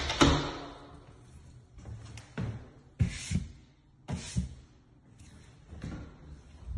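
Footsteps on a hardwood floor: a handful of soft, irregular thuds and knocks, some with a brief rustle, the loudest just after the start.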